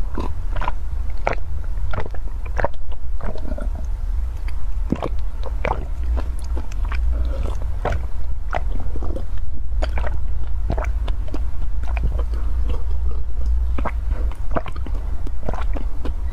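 A person gulping a yellow drink straight from a plastic cup, close to the microphone: a steady series of swallows, about one and a half a second, over a steady low hum.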